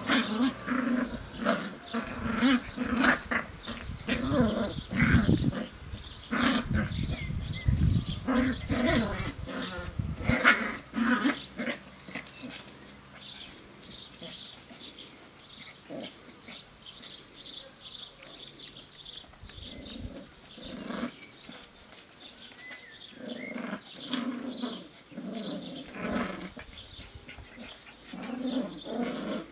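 Seven-week-old Sealyham Terrier puppies play-fighting, with many short puppy growls and yaps, densest in the first dozen seconds and sparser after. A low rumble runs under them from about six to ten seconds in.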